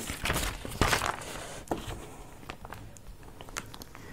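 Sheet of paper being turned over and laid flat, a dry rustle in the first second or so, followed by a few light taps and ticks of the paper being handled.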